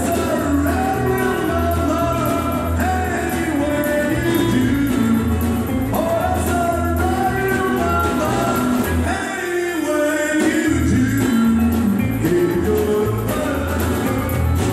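Live country-western band playing a song: a fiddle, strummed acoustic guitars and a banjo under a lead vocal. A steady low bass line runs beneath and drops out briefly about ten seconds in.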